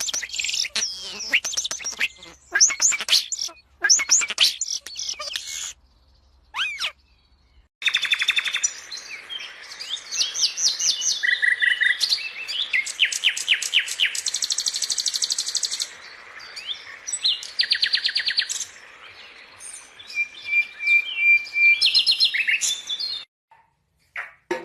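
Songbirds singing: quick chirps and rapid trills of repeated high notes. The birdsong drops out twice, briefly.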